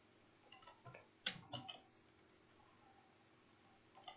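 Faint, scattered clicks of a computer mouse in near silence, a handful in all, the loudest just over a second in.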